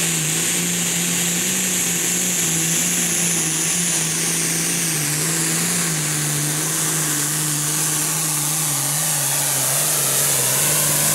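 Super Farm class pulling tractor's diesel engine running flat out under load as it drags the weight sled: a loud, steady engine note that wavers slightly, over a strong high hiss.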